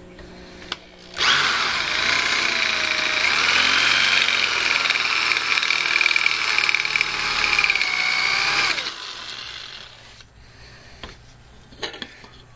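Electric drill with a large twist bit boring into a spot weld on a steel idler pulley: a loud grinding whine with a wavering squeal for about seven and a half seconds, then it stops. A few clicks near the end as the pulley is handled.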